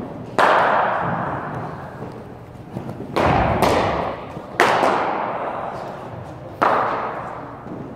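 Cricket balls cracking off bats and hitting the nets and hard surfaces of an indoor practice hall: five sharp knocks, two of them close together in the middle, each followed by a long echo.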